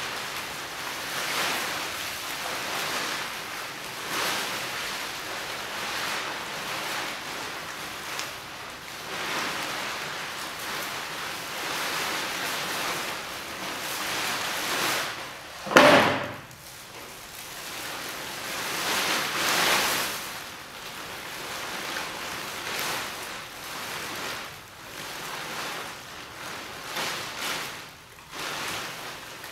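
Plastic tarpaulin costume rustling in repeated swells as the wearer moves, with one loud thump a little past halfway.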